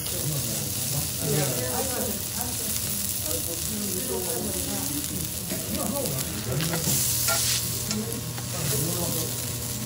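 Cubes of wagyu beef searing on a hot steel teppanyaki griddle, with a steady sizzle and the steel fork and spatula scraping the plate. The sizzle flares louder for a moment about seven seconds in, as the spatula comes down on the griddle.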